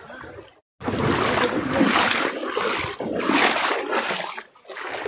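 Shallow stream water rushing and splashing over mossy rock, heard close up. It swells and fades a few times and cuts out briefly about half a second in.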